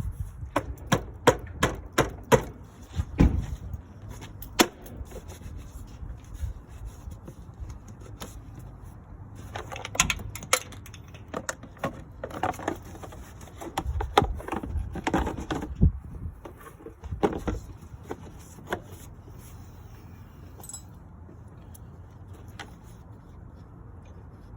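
Irregular sharp clicks and knocks of metal tools and parts being handled during a repair. They come in a quick run at the start, again in clusters in the middle, and thin out near the end.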